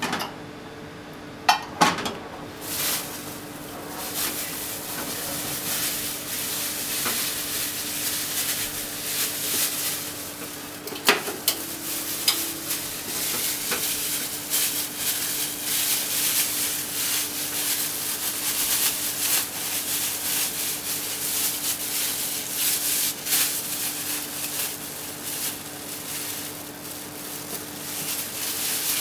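Oil heating in a non-stick frying pan on a gas burner, with a couple of knocks as the pan is moved about two seconds in. From about three seconds in the oil sizzles and crackles steadily, over a faint low hum.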